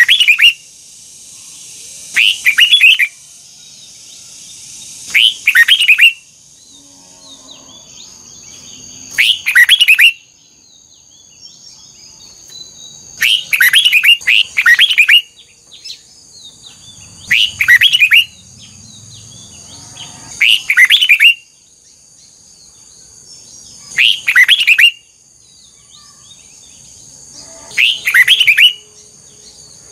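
Red-whiskered bulbul singing: short, loud, rapid whistled phrases repeated about every three to four seconds, about nine times, over a faint steady high-pitched hum.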